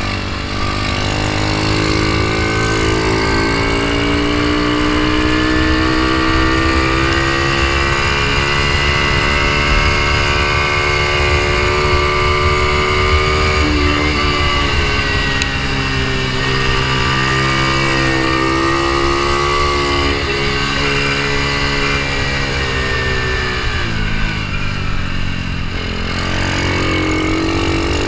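Ohvale mini GP bike's small single-cylinder engine running hard on a lap. It revs up steadily through the first half with a brief dip around the middle, holds high, then winds down for several seconds before picking up again near the end.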